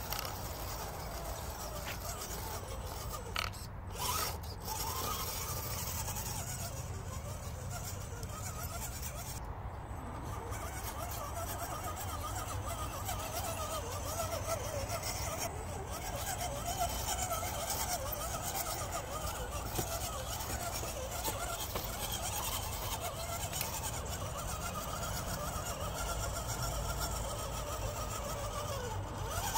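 Axial SCX10 RC crawler's electric motor and geartrain whining, the pitch wavering up and down with the throttle as it crawls slowly. There are a couple of knocks a few seconds in.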